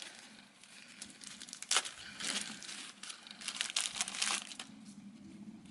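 Crinkling and rustling of a small plastic packet handled and opened by hand, in short irregular bursts with scattered clicks, as a new oil filler plug gasket is taken out.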